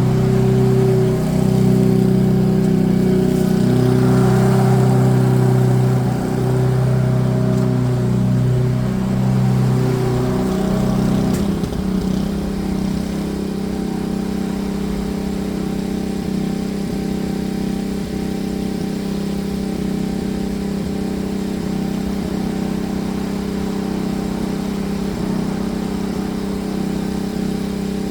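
Petrol lawn mower engine running steadily while mowing and collecting leaves. About 11 seconds in, its note shifts and settles into a slightly quieter, steadier run.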